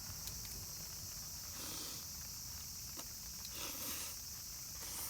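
A steady, high-pitched chorus of crickets and other insects trilling, with a couple of soft muffled sounds about a second and a half in and again near four seconds in.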